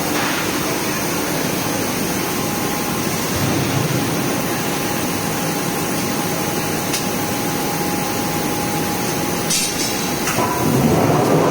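Forging machinery running in a workshop: a steady mechanical din, with a few sharp metallic knocks in the second half.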